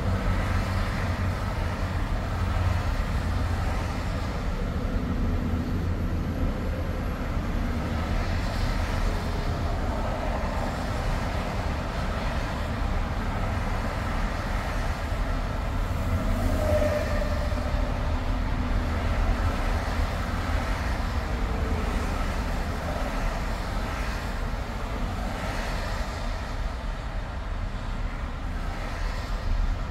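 Steady highway road noise of a car driving on an interstate: a low rumble of tyres and engine with a hiss that swells now and then.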